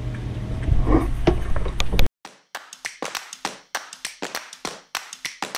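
Background music: a quick, even beat of claps and taps that starts abruptly about two seconds in. Before it, a steady low rumble with a short voice sound.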